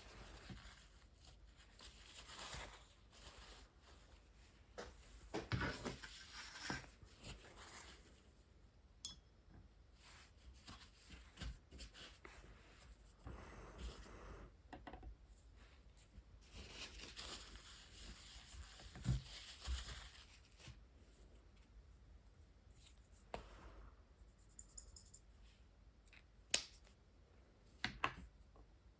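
Soft scratchy rustling of a brush-tip water-based marker and hand moving over watercolour paper, in patches of a second or a few seconds, with small clicks and knocks in between and a sharper click near the end.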